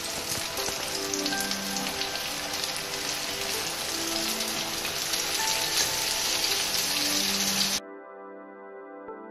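Flour-coated squid pieces deep-frying in a wok of hot oil: a steady sizzle and crackle, with soft background music underneath. The frying cuts off suddenly near the end, leaving only the music.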